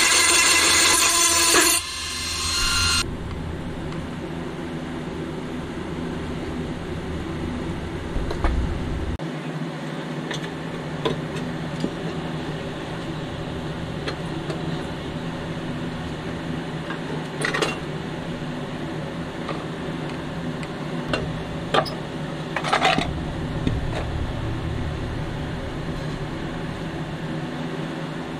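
A rotary tool with a grinding stone runs with a steady whine for about the first two seconds, grinding the head off a rivet on a pressed-steel toy van, then stops. After that come scattered clicks and knocks as the steel body, baseplate and plastic interior are handled and pulled apart.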